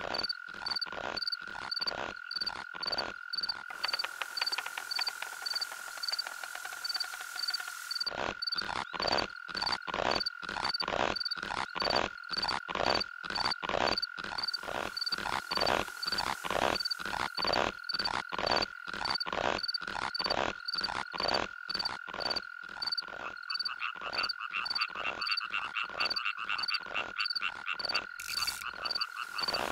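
Rapid, regular croaking calls, about two to three a second, over a steady high-pitched tone. The calls thin out for a few seconds shortly after the start, then carry on evenly.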